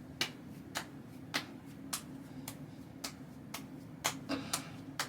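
A run of light, sharp clicks, about two a second, over a steady low hum.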